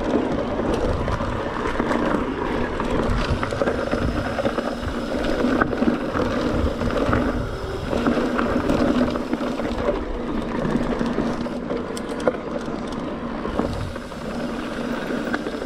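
Mountain bike rolling along a dirt singletrack: a steady rumble of tyres on dirt and leaves with wind on the microphone, a steady hum under it, and scattered knocks and rattles from the bike over bumps.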